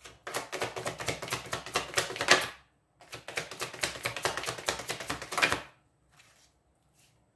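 A deck of tarot cards shuffled by hand, the cards clicking rapidly against each other in two runs of about two and a half seconds each, followed by a few faint taps.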